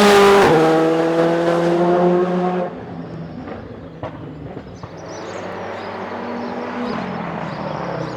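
Rally car passing close at high revs: a gear change about half a second in, then the engine note slides down as it goes by, and the level drops sharply after about two and a half seconds. A quieter engine carries on in the distance afterwards.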